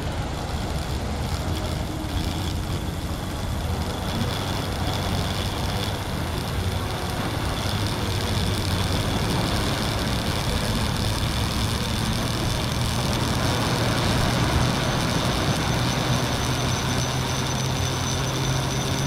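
DJI Phantom quadcopter drone humming steadily in flight, its pitch rising a little in the later seconds, over the steady wash of surf on lava rock.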